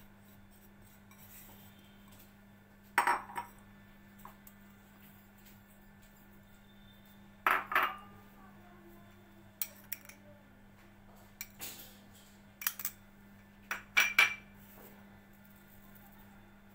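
Dishes clinking: small glass bowls knocking against a stainless-steel mixing bowl as ingredients are tipped into flour. The clinks are sharp and scattered every second or two, some in quick pairs, over a faint steady hum.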